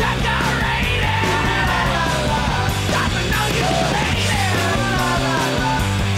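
Rock soundtrack music with shouted vocals over a steady bass line and regular drum hits.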